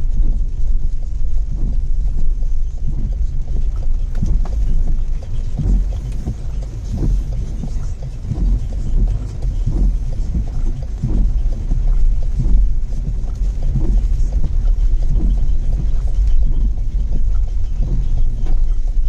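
Steady low rumble of a vehicle being driven along a road, with irregular knocks and bumps throughout.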